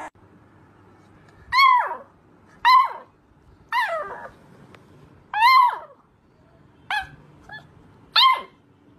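Beagle puppy howling in six short yelping calls, roughly one every second and a half. Each call starts high and slides steeply down in pitch.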